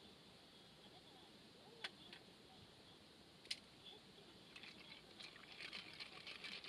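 Wood fire crackling in a fire stand: two sharp pops about two and three and a half seconds in, then a run of faint, rapid crackles near the end, over near silence.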